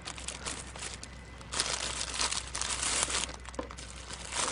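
Crinkling, rustling handling noise close to the microphone as a Geiger counter is laid down on top of a sample. It is loudest for about two seconds in the middle.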